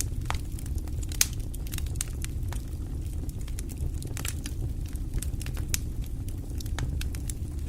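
Wood fire crackling: irregular sharp pops and snaps over a steady low rumble of flames, with one louder pop about a second in.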